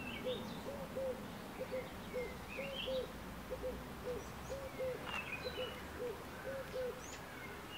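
Birds calling: one bird repeats short, low notes, each rising and falling, in quick pairs and threes, while small birds chirp higher above it.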